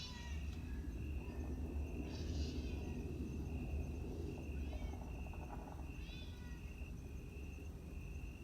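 Cats meowing: a run of short, high-pitched mews repeating about once a second, a few louder than the rest, over a low steady hum.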